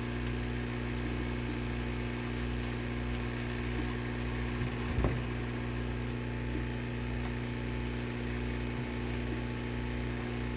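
Heat gun running steadily: an even electric hum with a blowing hiss, used to soften the adhesive under the iPad's glass. A single light tap about five seconds in.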